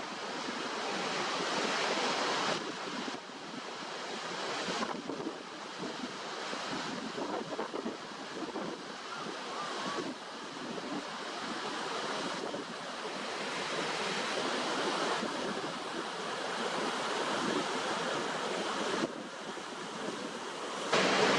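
Steady rush of falling, crashing water, a dense noise that changes abruptly in level and tone several times as one water scene cuts to the next.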